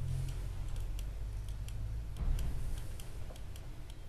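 Scattered light clicks and taps of laptop keys and trackpad, at irregular spacing, over a low steady room hum.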